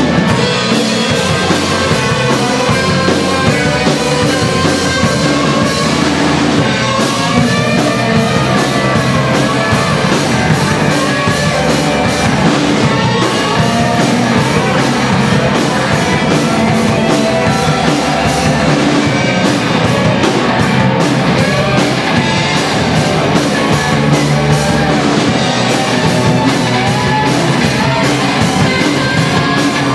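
A live rock band playing loudly and without a break: electric guitars over a drum kit.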